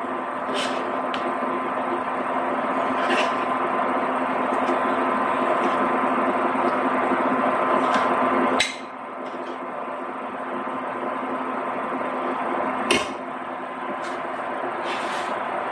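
Hot cream sauce bubbling in a skillet on a countertop burner, a steady hiss with a faint hum, while a serving spoon clinks against the pan a few times. The hiss drops suddenly about eight and a half seconds in and carries on more quietly.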